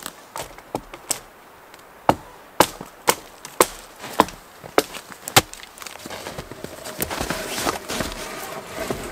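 Axe chopping into a dry standing dead spruce: a run of sharp wooden strikes, about two a second. After them come softer crackling and rustling of wood and branches.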